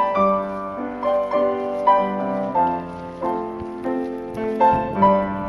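Piano music: a melody of struck notes with chords beneath, at a gentle, even pace.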